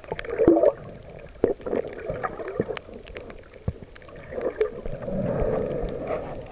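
Muffled underwater sound picked up by a camera held below the surface: sloshing and bubbling water that swells a few times, with scattered sharp clicks.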